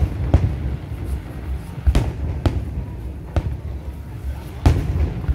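Aerial fireworks shells bursting in a string of sharp booms, about half a dozen spaced unevenly a fraction of a second to a second or more apart, over a continuous low rumble from the display.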